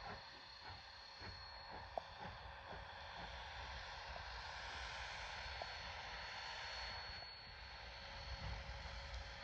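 Faint exhaust of the K-36 narrow-gauge steam locomotive 487 as it works its train away, chuffing at about three beats a second, under a rushing noise that swells in the middle.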